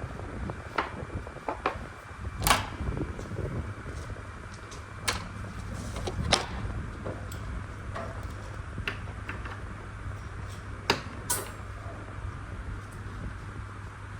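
Irregular sharp clicks and knocks, about ten of them, the loudest about two and a half seconds in, over a steady low hum.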